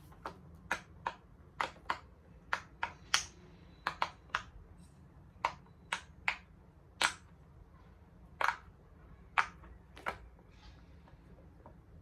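Large silicone pop-it fidget toy having its bubbles pressed by fingers: about twenty sharp pops at an uneven pace, sometimes two or three in quick succession, thinning out near the end.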